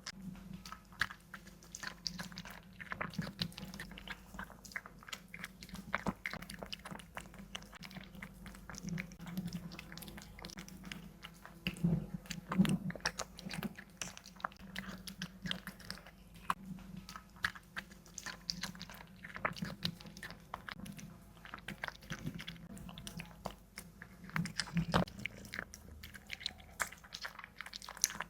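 A cat chewing and biting on meat strips, with dense irregular chewing clicks throughout and a few louder bites about twelve seconds in and near the end.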